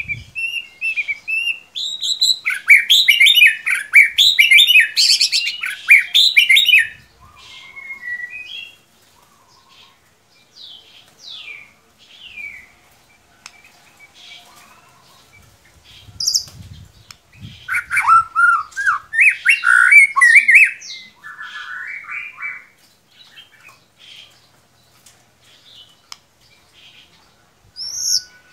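White-rumped shama (murai batu) singing: loud, varied phrases of whistled glides and rapid chattering notes in two long bouts, the first at the start and the second from about the middle, with softer short phrases between.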